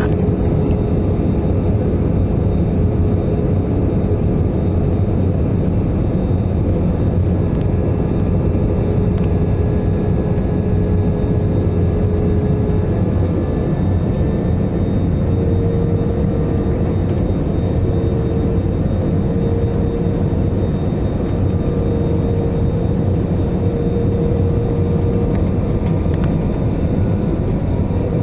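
Jet airliner's cabin noise on approach: a steady rumble of engines and airflow with a steady whine in it that steps slightly higher about halfway through.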